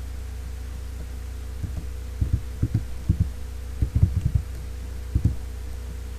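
Computer keyboard keystrokes: about a dozen dull, irregular taps, bunched around the middle, as a word is typed. A steady low electrical hum sits underneath.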